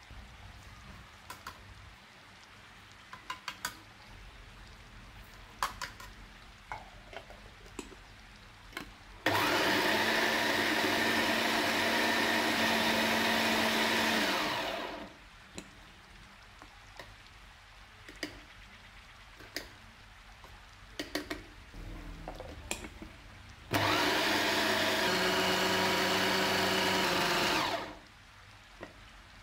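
Electric mini food chopper running steadily twice, about five seconds and then about four seconds, its blade grinding raw fish and seasonings to a smooth paste and then mixing in flour. Light clicks and taps of the bowl and lid being handled between the runs.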